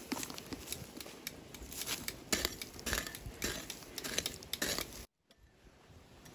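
Digging into dry, stony soil with a metal hand tool: irregular scraping, crunching and clinking strikes. These stop abruptly about five seconds in, leaving a faint hiss.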